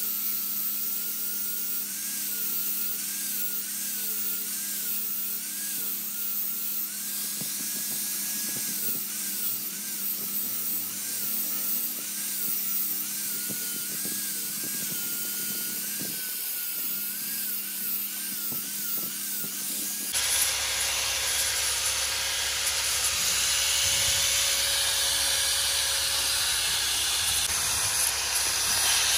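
A workshop power tool runs with a steady whine, its higher pitch wavering up and down about once a second. About two-thirds of the way in, it changes suddenly to a steady hiss.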